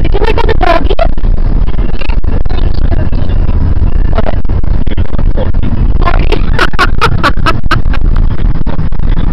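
Road noise inside a moving car's cabin: a steady, loud low rumble of tyres and engine, with short bursts of a voice near the start and again about six seconds in.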